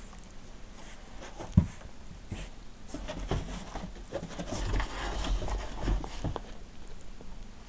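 Small dog spinning after its own tail on carpet: scuffling paws and body movement, with a sharp thump about a second and a half in and busier scrambling noise in the middle.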